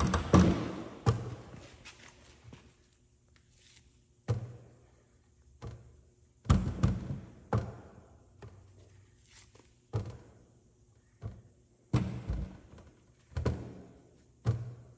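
Irregular thuds and knocks as blocks of bait are handled and set down on a stainless steel work table and weighing scale, with quiet gaps of a second or more between them.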